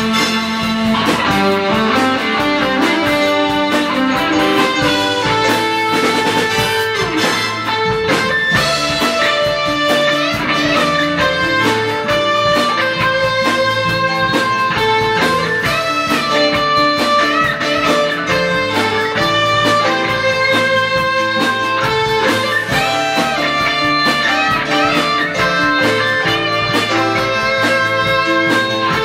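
A band playing, led by electric guitar, with drums keeping a beat underneath.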